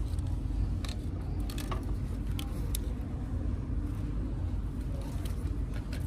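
Steady low rumble of shop background noise, with a few light clicks and taps as artificial flower stems and glass vases are handled on glass shelves.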